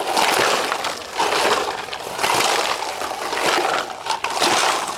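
Homemade plastic-bottle shakers shaken together by a group of children, a rattling swish in a steady beat of about one shake a second.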